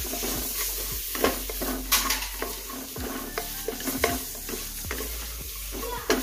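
A wooden spatula stirring and scraping chicken pieces, diced potatoes and onion masala frying in oil in the open base of a pressure cooker, with a steady sizzle and irregular knocks of the spatula against the pan.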